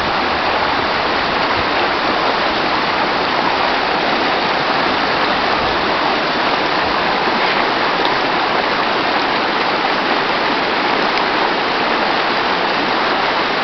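Rushing water of a stream, a steady, unbroken sound.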